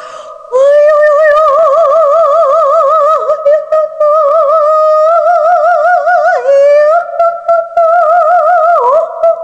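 A woman vocalizing high and light in soft half-voice, holding notes with a fast, wide vibrato. The pitch scoops down briefly and steps up slightly twice, about halfway through and again near the end. This is a demonstration of light-voice (half-voice) singing done with a full, whispering feel.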